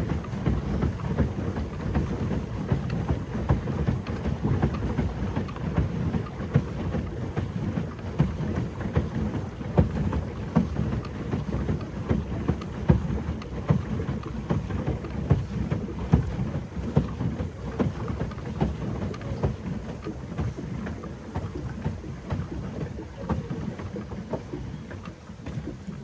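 Pedal boat under way: steady splashing and churning of water with a low rumble underneath and many small irregular splashes.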